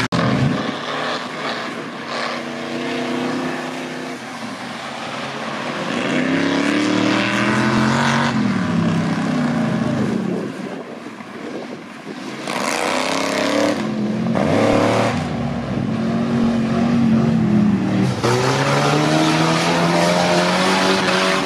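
Pickup truck engines revving hard as the trucks power through deep mud, the pitch rising and falling again and again, with a brief lull about halfway through.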